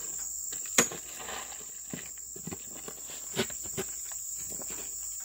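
Steady high insect drone, with a sharp knock about a second in and a couple of fainter knocks later on.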